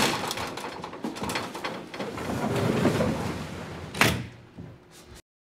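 Metal scissor-style elevator gate rattling and clanking, with a sharp knock about four seconds in; the sound cuts off suddenly near the end.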